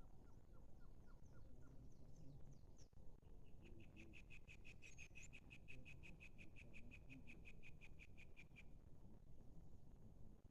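Faint bird calls: a few short high notes, then a fast, even trill of about six notes a second lasting some five seconds.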